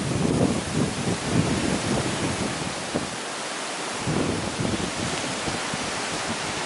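Strong, gusty wind on the microphone, coming in surges, which all but drowns out the automatic level crossing's warning sirens.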